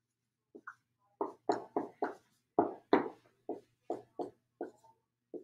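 Dry-erase marker writing on a whiteboard: a run of about a dozen short, scratchy strokes, irregularly spaced, as a word is written out.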